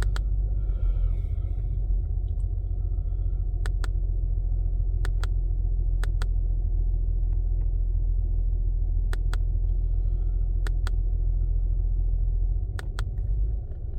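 2005 Acura TL's 3.2 L V6 idling under load with a steady low rumble, while it misfires enough to be felt though the scan tool detects none. Sharp clicks come now and then, and the running drops off about a second and a half before the end.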